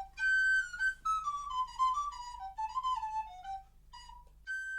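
Solo recorder playing a melody: a held high note, then short notes stepping downward, a brief pause, and another long high note near the end.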